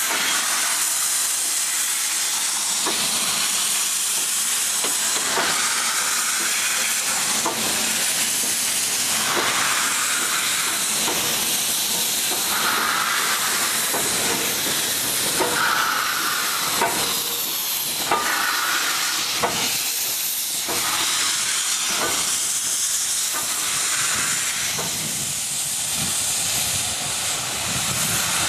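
16A class Garratt steam locomotive in steam, hissing steadily from its cylinders and running gear. The hiss swells every few seconds, with sharp knocks scattered through.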